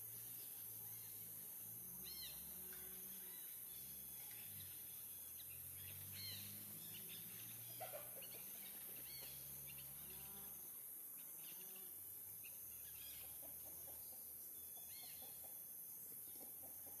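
Faint outdoor ambience: a steady high hiss with scattered short, high, arched chirps, and a wavering low hum through the first two thirds. A brief double crackle about eight seconds in is the loudest moment.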